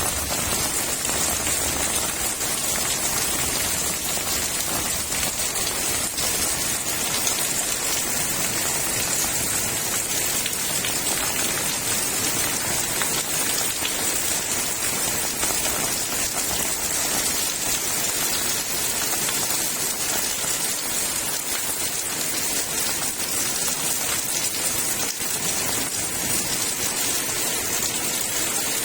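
Heavy rain pouring steadily, a dense even hiss of drops.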